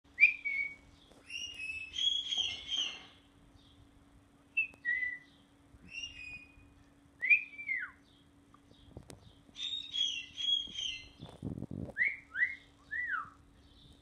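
Short whistled notes traded between a person whistling and a bird calling back: a cluster of chirps and whistles in the first three seconds, scattered single notes, another cluster about ten seconds in, and three quick falling whistles near the end.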